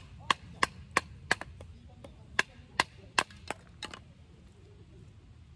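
Batoning: a wooden baton knocking on the spine of a knife driven into softwood firewood to split it. About ten sharp knocks at roughly three a second, in two runs with a short pause after the first second and a half, stopping about four seconds in.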